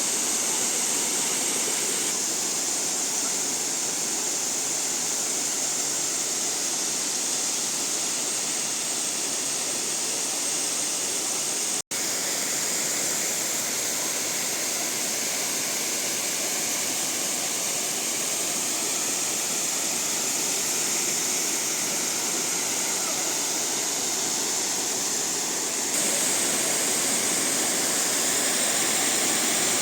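Salza waterfall: the steady rush of falling water. It cuts out for an instant about twelve seconds in.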